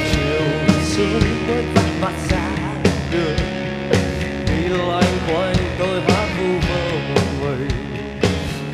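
Rock band playing an instrumental passage: a lead electric guitar line that bends and wavers in pitch over steady drums and bass.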